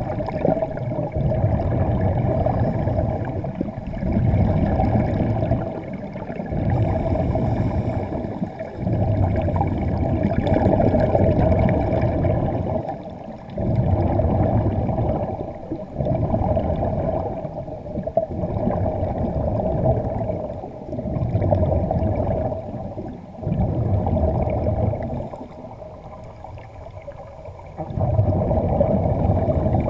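Underwater bubbling and rushing air from a diving helmet's hose-fed air supply, coming in surges every two to three seconds, heard underwater. The surges ease off for a few seconds near the end.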